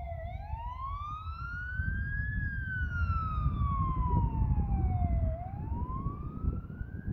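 Fire engine siren on a slow wail: the pitch climbs for about two seconds, falls for about three, then starts climbing again near the end. A low rumble runs underneath.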